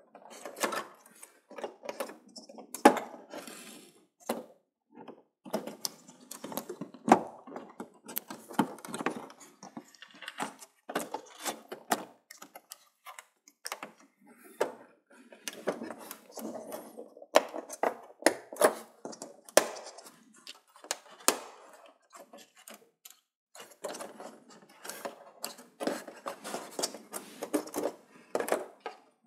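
Irregular clicks, taps and light knocks with rustling, from hands handling plastic and metal parts as an LED TV's backlight strips are unclipped and fitted into the back panel.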